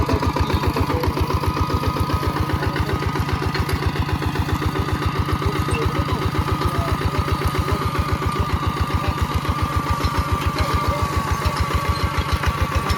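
Mini tractor's engine running at a steady speed with a rapid, even chugging beat while turning over soil.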